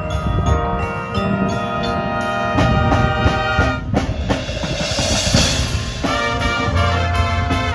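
High school marching band playing live: brass chords over drums and pit percussion, with a bright crash of percussion swelling and fading about halfway through.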